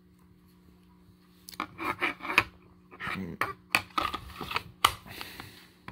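HK P30SK pistol being worked into a basket-weave Kydex holster: plastic scraping and rubbing with several sharp clicks, starting about a second and a half in.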